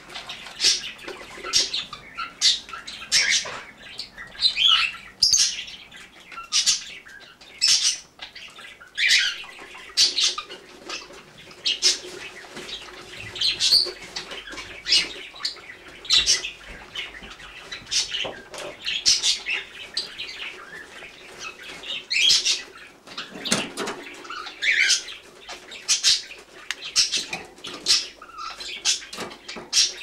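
Canary giving short high chirps, one or two a second, many of them falling in pitch.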